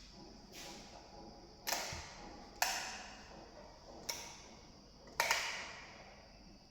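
Five sharp knocks at uneven intervals, each ringing out briefly, over a steady high insect chirring from crickets.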